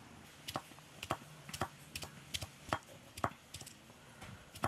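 Knife chopping ginger on a board: about ten sharp chops, roughly two a second and slightly uneven.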